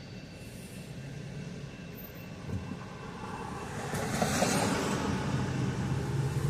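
Low, steady engine rumble, joined from about four seconds in by the growing rush of a vehicle going by, which gets louder toward the end.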